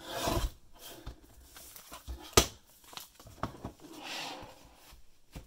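Paper handling: a cut paper envelope rustling and sliding as it is gathered off a paper trimmer, with small clicks and one sharp knock about two and a half seconds in.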